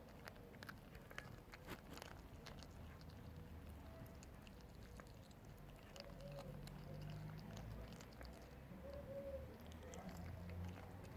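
Faint scattered clicks and scuffs, with a few short, soft animal calls in the second half.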